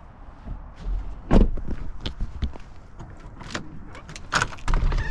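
A vehicle door shuts with a heavy thud about a second and a half in, followed by scattered clicks and knocks. Near the end a storm door's lever handle is worked and the door clicks open.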